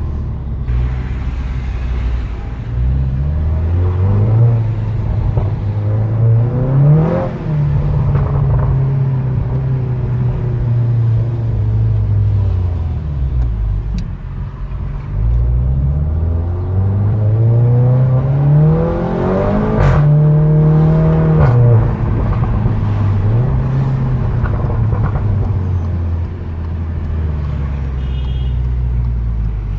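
SEAT Leon Cupra's engine pulling hard through the gears: its pitch climbs in steps with gear changes in the first several seconds, holds steady for a while, then climbs again through the middle and drops away after about twenty seconds.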